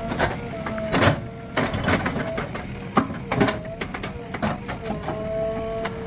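Backhoe loader at work: a steady two-tone whine that briefly sags in pitch a few times, with irregular clanks and knocks throughout, the loudest about a second in.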